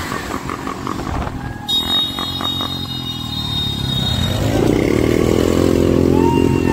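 Motorcycle engines running as bikes ride along the street, one engine rising in pitch and getting louder from about four seconds in.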